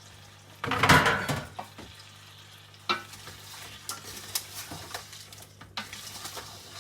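Shrimp frying in melted butter and garlic in a pan: a loud surge of sizzling about a second in, then a lighter sizzle with sharp clicks and ticks of a utensil stirring against the pan.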